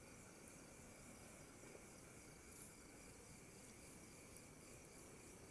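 Near silence with a faint, steady chorus of crickets trilling.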